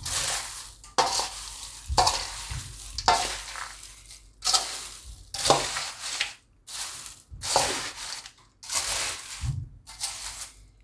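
Crisp fried cornflake chivda being tossed with a steel spoon in a stainless-steel bowl: a dry, crunchy rustle of flakes with each stroke, about ten strokes roughly a second apart.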